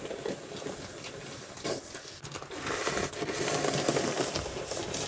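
Homemade snow pusher, a plow blade mounted on a two-wheeled hand truck, pushed along a driveway and scraping over the pavement as it shoves snow; a steady scraping that grows louder around the middle.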